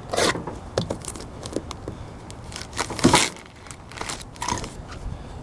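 Crinkling and rustling of shipping packaging being handled and torn open, in a series of short bursts, loudest near the start and about three seconds in.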